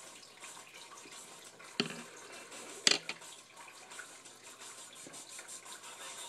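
Paper being folded and pressed against a wooden tabletop, a soft rustle over steady hiss, with two sharp taps about a second apart near the middle, the second the louder.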